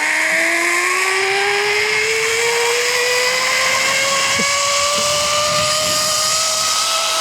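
Zip line trolley pulleys whining along the steel cable, one steady whine that rises slowly and evenly in pitch as the rider gathers speed.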